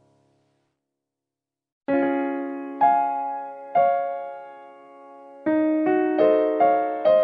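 Background piano music: after about two seconds of silence, slow struck chords ring out and fade, followed by a quicker run of notes near the end.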